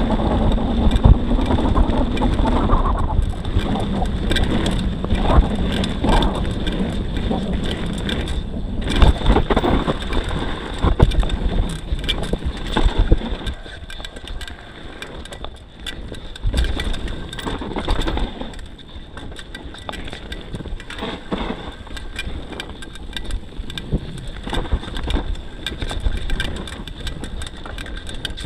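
Wind rushing over the action camera's microphone and tyres rumbling on a dirt trail as a YT Tues downhill mountain bike descends, with frequent rattles and knocks from the bike over rough ground. The rush drops off about halfway through as the bike slows.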